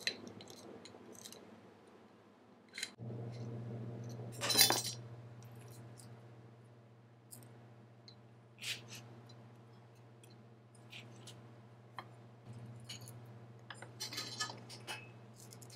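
Metal parts and a PVC pipe mold clinking, knocking and scraping as a cast urethane roller is worked free by hand. There is a louder half-second scrape about four and a half seconds in, and a cluster of scraping near the end. A low steady hum comes in about three seconds in, drops away for a few seconds and returns.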